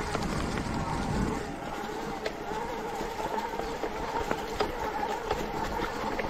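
Electric mountain bike's assist motor whining steadily while pedalling, over a low rumble of tyres on the trail, with scattered small knocks from the ride.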